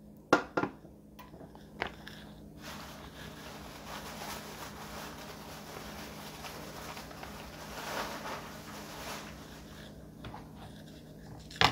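A mahi-mahi filet frying in oil in a nonstick pan, giving a steady, faint crackling sizzle. There are a few sharp clicks in the first two seconds and a louder knock near the end.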